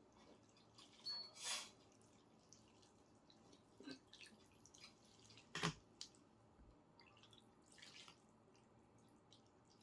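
Near silence with scattered faint ticks and a few brief soft noises, the loudest about one and a half seconds in and again just before the sixth second.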